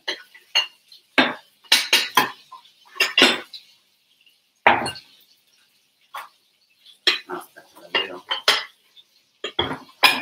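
Kitchen crockery and cutlery clattering: a string of irregular sharp clinks and knocks with short quiet gaps between them.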